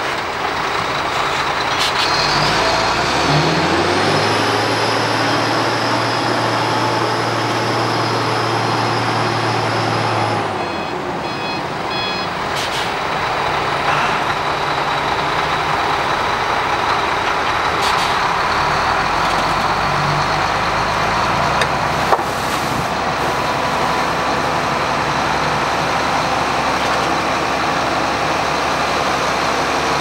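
Heavy Shacman dump truck's diesel engine running steadily as the truck reverses and tips its bed. A brief run of reversing beeps sounds about eleven seconds in, and a single sharp click comes about two-thirds of the way through.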